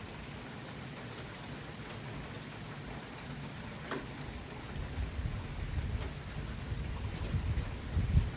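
Steady rain falling, with a low uneven rumbling that comes in after about five seconds and is strongest near the end.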